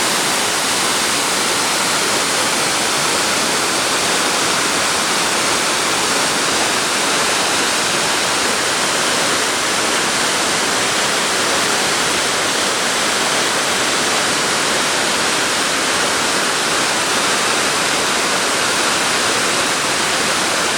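Waterfall's loud, steady rush of falling water, an unbroken roar of white water with no change in level.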